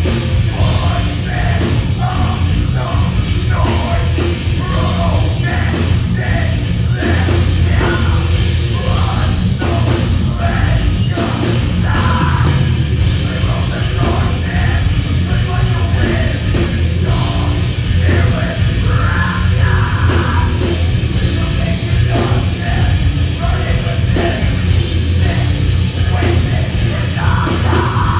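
Heavy metal band playing live and loud, with drums and a singer yelling and singing into a microphone.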